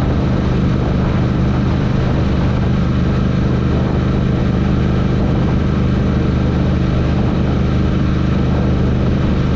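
Royal Enfield Interceptor 650's parallel-twin engine running at steady, unchanging revs, with a steady rush of noise over it.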